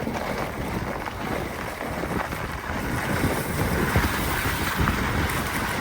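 Truck driving along a plowed snowy lane: steady engine and road noise with an uneven low rumble.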